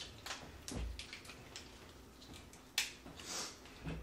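Eating noises from a seafood boil eaten by hand at a table: scattered small clicks and cracks of shells, forks and plates, the sharpest crack nearly three seconds in, followed by a short hiss-like rustle.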